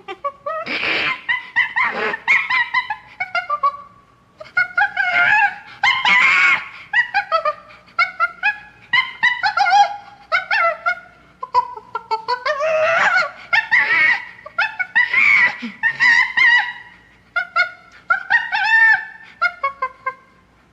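Chimpanzee calling in bouts of a few seconds: each bout is a quick series of high calls that rise and fall in pitch, with short pauses between the bouts.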